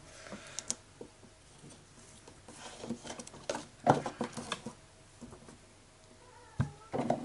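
Plastic pieces of a Play-Doh play set being handled on a table: scattered light clicks and taps, in a few clusters.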